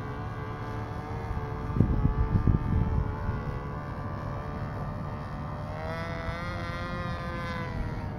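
Small Cox .049 two-stroke model engine, converted to glow fuel and swinging a 7x3 propeller, buzzing steadily as the model plane flies overhead. A few low thumps come about two seconds in. About six seconds in, the buzz grows louder and brighter and its pitch slides down.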